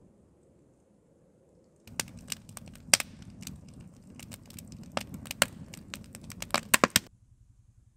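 Wood fire in a metal fire pit crackling, with many sharp pops over the low rush of the flames. It comes in suddenly about two seconds in and stops abruptly near the end.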